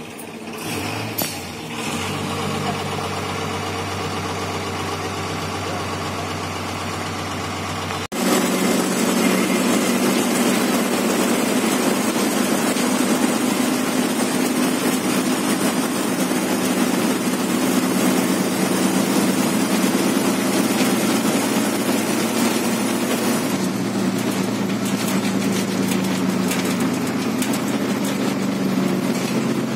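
Diesel engine of an MSRTC bus heard from inside the passenger cabin, running steadily with a low hum. About eight seconds in, the sound jumps abruptly to a louder, rougher drone of engine and road noise as the bus cruises along the highway.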